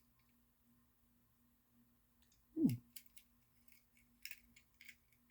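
Quiet room with a faint steady electrical hum. A little over halfway there is one brief falling-pitch vocal sound, then a few light clicks and rustles of diecast toy cars and packaging being handled.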